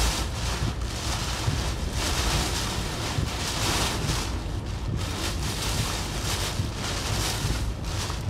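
Hurricane eyewall wind with driving rain, buffeting the microphone with a heavy low rumble. The noise surges in gusts about once a second, with a longer, stronger gust from about two to five seconds in.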